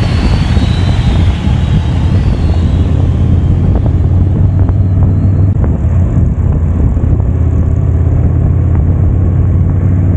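Motorcycle cruising at steady speed, heard from the rider's seat: a steady low engine drone under wind rush. The high hiss of the wind drops away about four seconds in.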